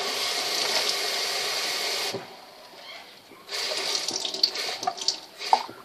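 Water from a tap running into a water bottle, filling it. The flow stops about two seconds in, then starts again about a second and a half later, splashing more unevenly.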